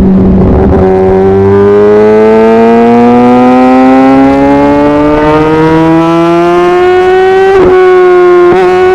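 Kawasaki ZX-10R's inline-four engine pulling hard under acceleration, its pitch climbing steadily for about seven seconds, then cut briefly twice near the end.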